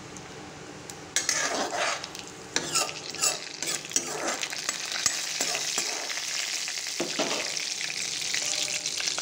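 Dried red chillies and nigella seeds sizzling in hot mustard oil in a kadai. The sizzle jumps up about a second in, with a few short scraping stirs over the next few seconds, then runs on steadily.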